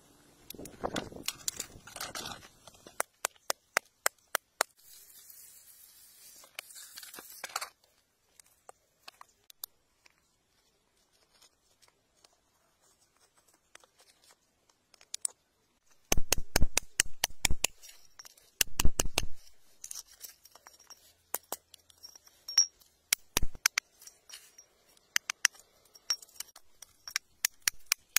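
Metal digging tool scraping, tapping and prying in gravelly rock and soil: sharp clicks, scrapes and crunches in irregular runs, with a quiet stretch in the middle and the loudest, densest run of clicks and crunches a little past halfway.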